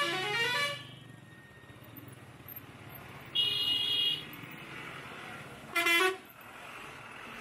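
Vehicle horns in street traffic. A musical horn sounding a quick run of changing notes stops about a second in. A steady horn blast follows about halfway through, then a short, loud beep a couple of seconds later.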